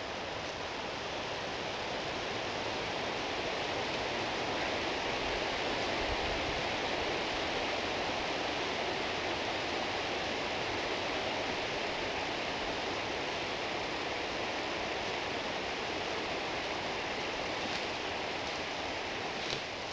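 Wind blowing through the tree canopy: a steady rushing hiss that swells a little a few seconds in and eases near the end.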